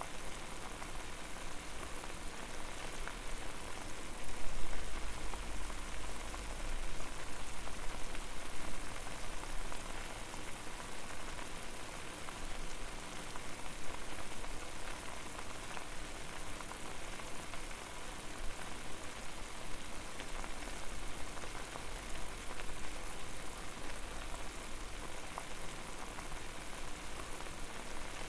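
Water boiling over a fire: a steady, dense patter of bubbling and popping.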